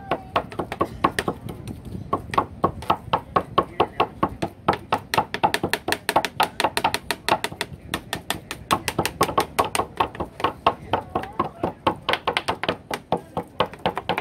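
Kitchen knife rapidly mincing tuna meat on a cutting board: a quick, steady run of chopping taps, about five a second.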